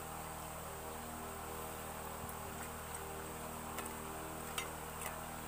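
A steady hum with a faint high whine over it, and a few soft clicks as fingers mix rice in a steel plate.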